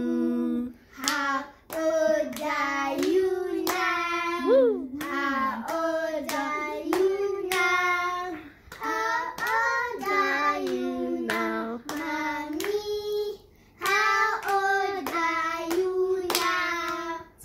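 Children singing a song together while clapping their hands along.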